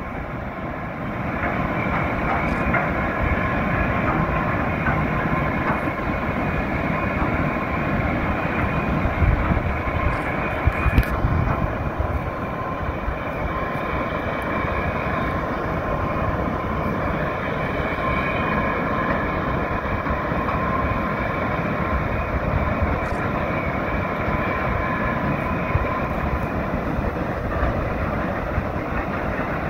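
Steady rush of river water pouring through the open gates of a movable dam, with a faint steady tone running through it.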